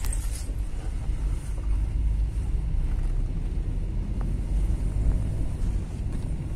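Car driving at a steady pace, a continuous low engine and road rumble heard from inside the cabin.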